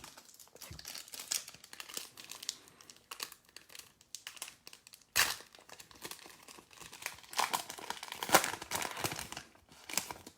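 Wrapper of an Optic basketball trading-card pack crinkling and tearing as it is ripped open by hand, in irregular crackles with a sharp tear about five seconds in and a denser stretch of crinkling near the end.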